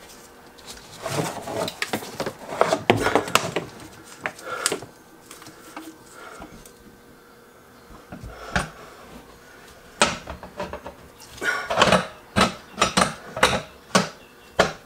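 Garbage disposal unit knocking and clicking against its sink-flange mounting ring as it is hung on and worked tight, in two bouts of rapid clicks and clunks with a quieter pause between.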